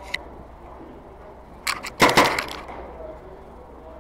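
Skirmish-game gunfire: a few sharp cracks a little before two seconds in, then a quick, louder string of them.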